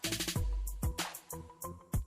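Background electronic music with a steady beat of booming kick drums, hi-hats and snare hits.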